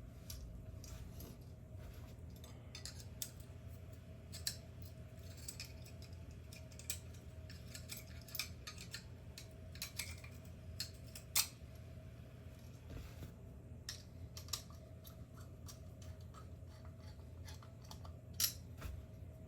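Irregular small clicks and clatter of parts being handled as a GU10 track light fixture is taken apart, with the sharpest clicks a little past halfway and near the end, over a steady low hum.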